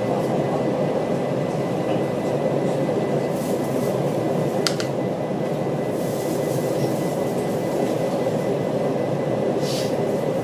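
Steady air-conditioning hum inside a train carriage, with a faint steady high tone and one sharp click about halfway through.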